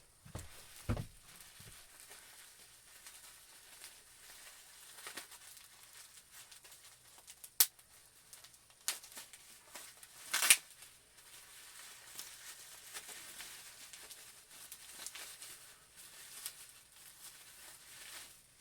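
Action-figure packaging being handled and opened: plastic and cardboard crinkling, with a few sharp clicks and a brief louder rasp about ten seconds in.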